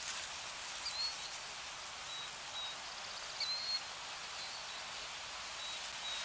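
Nature ambience: a steady soft hiss like light rain, with a few faint, short bird chirps.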